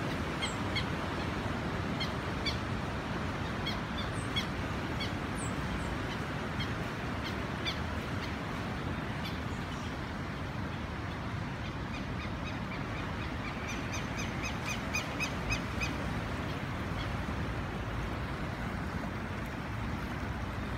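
River rapids rushing steadily, with birds calling over them: scattered short chirps through the first half, then a quick run of repeated notes about two-thirds of the way through.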